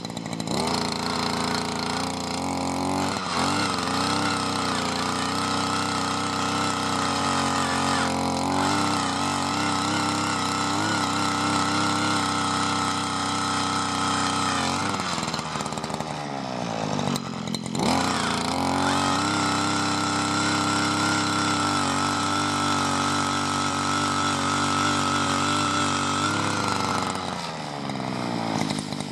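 Harbor Freight auger powerhead's two-stroke engine boring a post hole in soil: it revs up and runs at high speed under load, drops briefly to a low idle a little past halfway, then revs up and bores again before winding down near the end.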